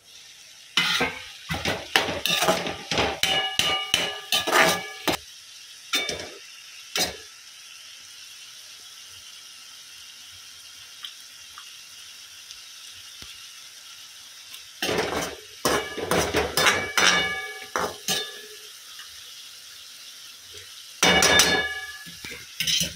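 Flat metal spatula scraping and clanking against a wok while stirring diced carrots. It comes in three spells of knocks with a short metallic ring: in the first few seconds, again in the middle, and near the end. Between the spells there is a faint steady sizzle.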